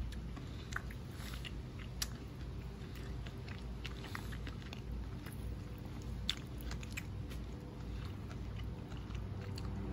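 Broiled spiny lobster tails being torn apart by hand, the meat pulled from the shell: scattered small crackles and clicks of shell and wet squishes of meat over a low steady rumble.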